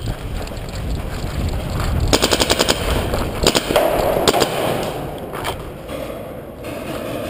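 Paintball markers firing: a fast burst of about a dozen shots a second about two seconds in, then scattered single shots, in a rock cave.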